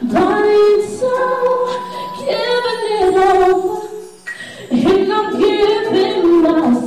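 A woman singing an R&B song into a handheld microphone, with held notes and sliding runs. There is a short pause about four seconds in before she comes back in.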